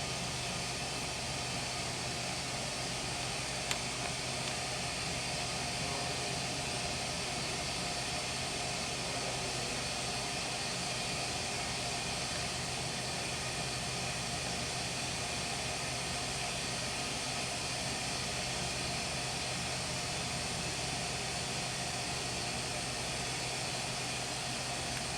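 Steady hum and hiss inside an elevator cab, with one faint click about four seconds in.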